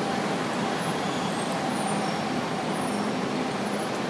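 Steady city street traffic noise: an even din of road vehicles with a faint steady hum underneath.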